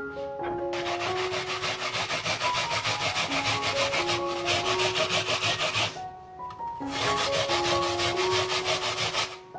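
A peeled apple being grated by hand on a plastic grater: rapid rasping back-and-forth strokes in two runs, with a short pause about six seconds in. Light background music plays underneath.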